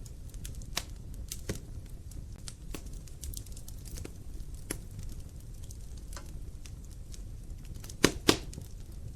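Wood fire burning in a fireplace: irregular sharp crackles and pops from the logs over a low, steady rumble of the flames. The two loudest pops come close together about eight seconds in.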